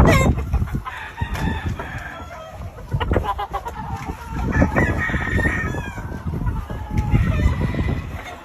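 Several gamefowl roosters crowing, the long crows overlapping one after another, over a low rumble.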